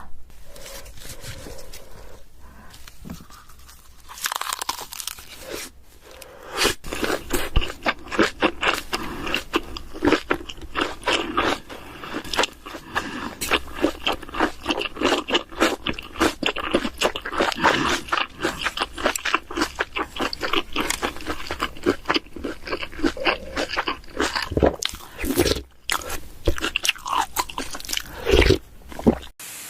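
Close-miked biting and chewing of crunchy food: dense, rapid crunches. It is quieter for the first few seconds, gets loud about six seconds in, and cuts off suddenly just before the end.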